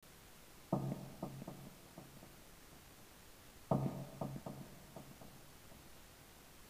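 Sparse opening notes of instrumental intro music: a low plucked note about a second in and another a little under four seconds in, each followed by a few quieter short notes.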